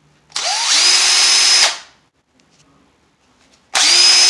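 Power drill spinning up twice in short trigger bursts. The first run whines up in pitch, holds steady for about a second and stops, and a second run starts near the end.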